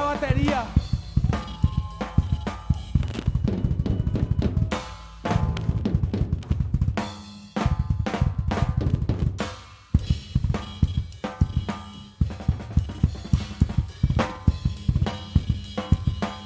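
Live rock band playing an instrumental passage with a busy drum kit to the fore (bass drum, snare, cymbals) over sustained bass and guitar. The band breaks off and comes back in several times.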